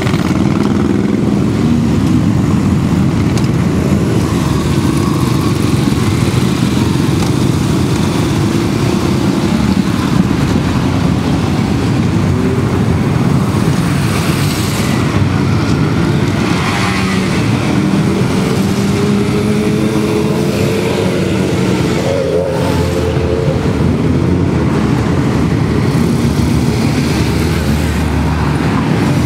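A steady stream of motorcycles riding past, many engines running together, with single bikes revving and rising in pitch as they go by, and a few cars passing among them.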